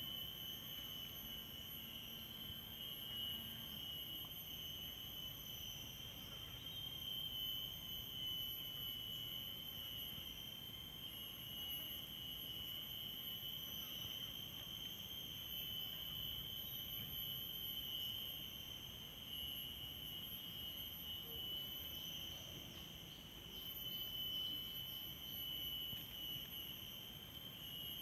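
Insects chirring: a steady, high-pitched drone that holds without a break.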